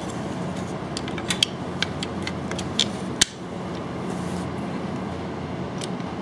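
A handful of sharp clicks and taps from an Antec case fan's plastic frame being handled and fitted to a liquid cooler's radiator, over a steady background hum.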